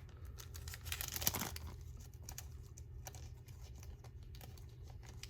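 Trading cards and their plastic packaging being handled, a quiet crinkling and rustling that is loudest about a second in, followed by faint scattered clicks.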